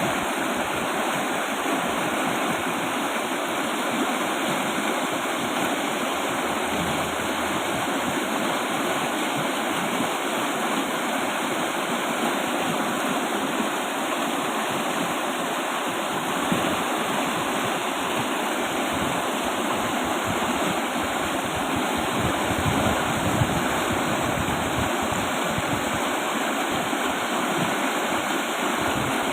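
River with a strong flow, its water rushing steadily over rocks with an even, unbroken sound.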